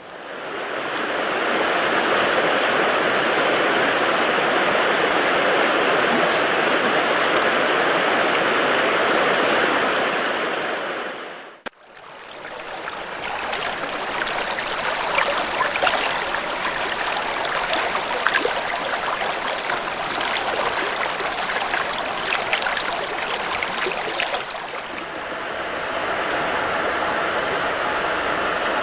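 Stream water rushing and babbling over rocks. About 12 s in the sound cuts abruptly to a brighter, splashier take full of small droplet splashes, and about 25 s in it cuts back to a duller, steadier rush.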